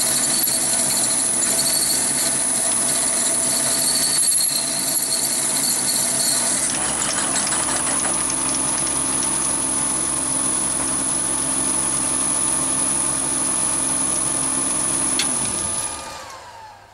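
Chinese mini lathe running under load as a large HSS twist drill bores into a metal bar, a steady motor whine over the cutting noise. Near the end a click, then the motor winds down, its pitch falling as the spindle coasts to a stop.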